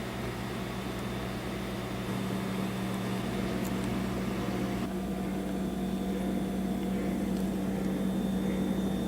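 Household refrigerator running with a steady hum and a frog-like noise on top of it. A lower layer of the sound cuts off about five seconds in while the hum carries on.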